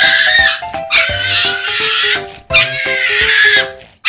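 Background music with a stepping melody and regular bass beats, over a cat and a small dog fighting, with repeated animal cries in bursts about a second long.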